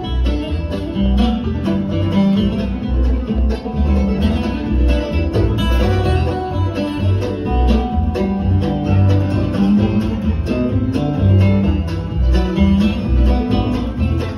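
Acoustic string band playing a bluegrass-style tune live: picked banjo, flat-picked archtop guitar and mandolin over a plucked upright bass keeping a steady pulse.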